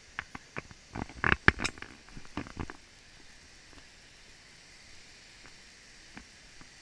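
Close crunching and knocking from walking a dirt trail with a handheld camera, a quick irregular cluster in the first three seconds. After that only a steady faint hiss remains.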